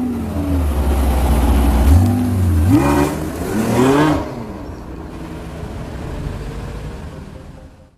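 Porsche 918 Spyder's 4.6-litre V8 pulling away: a deep steady drone, then the revs climb in three quick rising sweeps, the loudest part. The engine note then drops to a lower steady run and fades out.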